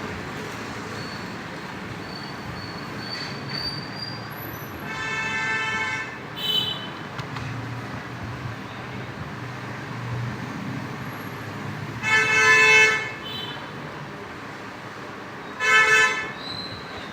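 Vehicle horns honking several times over steady traffic noise: three blasts of about a second each, plus one short beep.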